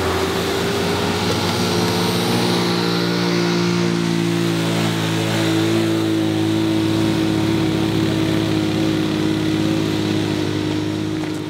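Motor vehicle engine pulling up a hill road, rising in pitch in the first second and then holding a steady note under load.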